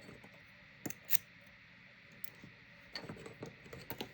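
Light metallic clicks and ticks of padlock parts and tools being handled: two sharper clicks about a second in, then a cluster of small ticks near the end.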